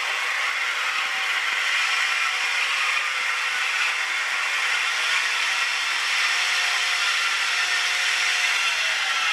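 Loud, steady mechanical noise from the engine bay of a running 1999 Honda Civic EX's D16Y8 SOHC VTEC engine, its cause unidentified.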